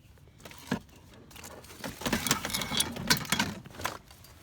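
A single click, then about two seconds of quick clicking and rattling of small hard objects.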